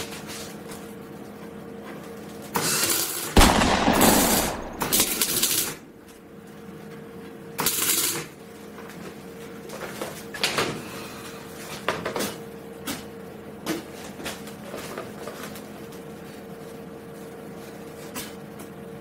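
Semi-automatic MIG welder laying short welds on a thin steel-tube chair frame: crackling arc bursts, the longest about three to six seconds in and a short one about eight seconds in, then scattered light clicks, over a faint steady hum. The welds are kept short because the metal is thin and could burn through.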